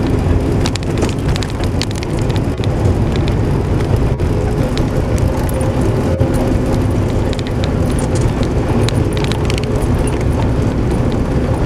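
Vehicle driving on a paved road, heard from inside the cabin: a steady engine and road rumble with frequent small rattling clicks.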